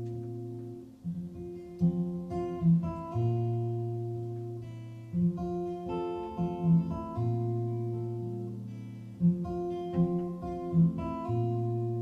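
Acoustic guitar strumming chords in a steady repeating pattern over held low notes, an instrumental passage of a live song with no singing.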